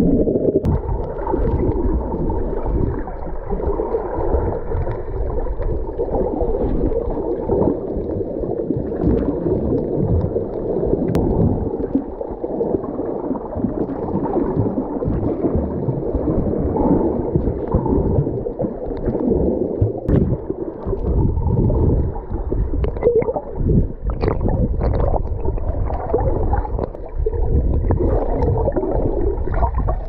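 Muffled underwater rush and churn of water heard through a submerged waterproof camera, with bubbles near the start and a few faint clicks.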